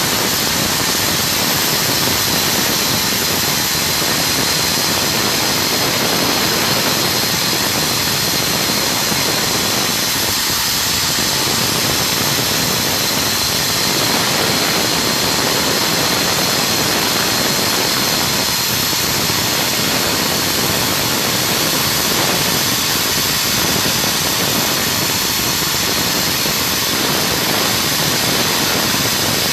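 Hangzhou Fortune oxygen-generating plant running: a steady machinery hiss with a constant high whine over it.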